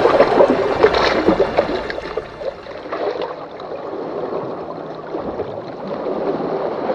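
Water sloshing and lapping, louder in the first two seconds, then quieter.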